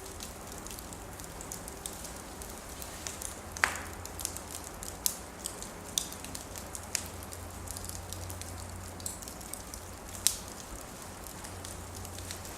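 Wood fire burning in a fireplace, crackling with irregular sharp pops over a steady hiss; the loudest pops come about four seconds in and about ten seconds in.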